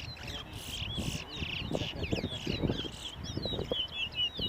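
Caged towa-towa finches singing in a competition: quick, repeated chirping notes that run faster and denser after about three seconds, over low, indistinct background chatter.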